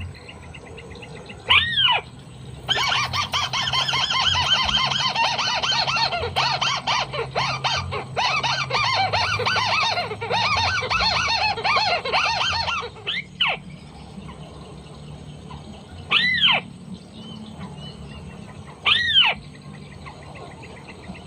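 White-browed crake calls. Single arched squawks come about a second and a half in and three more times near the end, and between them runs a long, rapid chattering series of about ten seconds.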